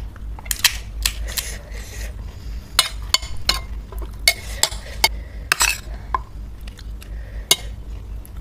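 Cutlery and dishes clinking: about a dozen sharp, irregular clicks and taps, as when a spoon knocks against a bowl or plate while panipuri are filled.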